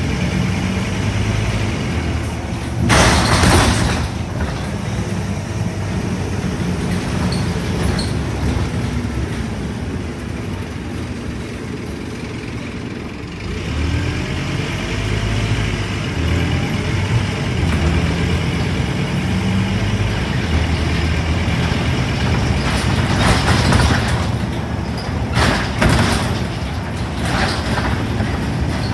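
Scania N230UD double-decker bus's five-cylinder diesel heard from inside the passenger cabin, running and changing pitch through gear changes, easing off about ten seconds in and pulling again about three seconds later. Short bursts of air hiss come about three seconds in and a few more near the end.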